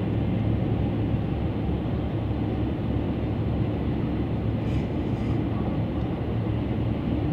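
Steady road noise of a car driving on a multi-lane freeway, heard from inside the cabin: tyre and engine rumble with a low, even hum.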